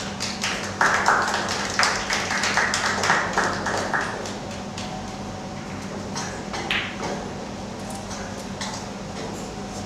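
Snooker balls and cue clicking, sharp irregular clicks. They are densest and loudest over the first four seconds, with a few more clicks later on.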